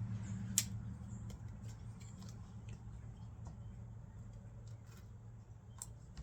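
Faint scattered clicks and light rustling of small plastic parts and packaging being handled, as a new ignition control module is taken out of its box, with a sharper click about half a second in. A low steady hum runs underneath.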